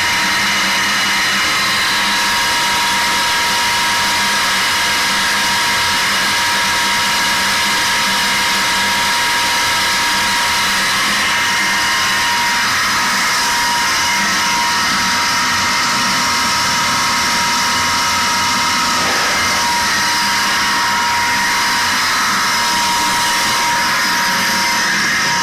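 An 18.5 kW Tesla-type disc sand pump (five discs, 20 mm gaps) and its electric motor running at a constant load while pumping sand slurry. The noise is loud and steady, with a steady high whine over it.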